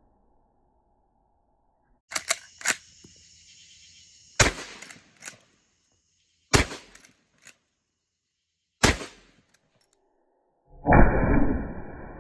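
Winchester Model 1894 lever-action rifle in .44 Magnum fired three times, about two seconds apart, each sharp shot followed by small clicks of the lever being worked. A few quick clicks come first, and a louder, longer mechanical clatter comes near the end.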